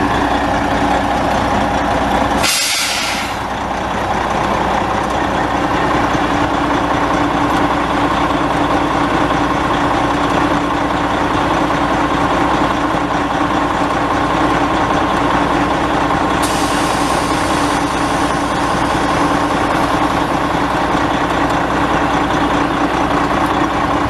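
Detroit Diesel Series 60 12.7-litre six-cylinder turbo diesel in a Freightliner dump truck idling steadily. About two and a half seconds in, a short hiss of released air from the truck's air system.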